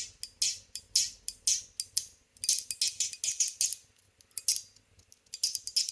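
Polycarbonate CHENYU SYNTONY fidget worked by hand, giving sharp repeated clicks: a steady run of about four a second, then quick flurries of clicks about two and a half seconds in and again near the end. Its sound is a bit muted next to the metal versions.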